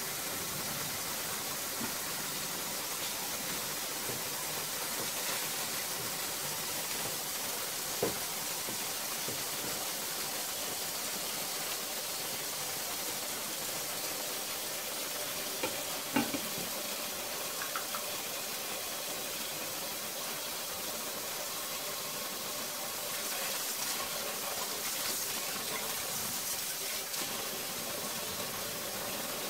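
Prawns frying in a pan with ginger and oyster sauce, a steady sizzle. A few sharp knocks about a third and halfway through, and light clicks later, as the glass lid is lifted and a spatula stirs the prawns.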